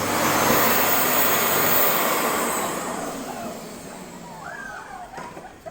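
Household vacuum cleaner switching on abruptly and running with a loud rushing noise, which fades over the next few seconds. A few short wavering whines come near the end.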